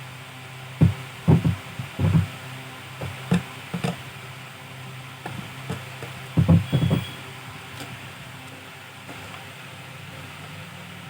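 A steady low hum with a run of irregular dull knocks: several about one to four seconds in, then a tight cluster between six and seven seconds.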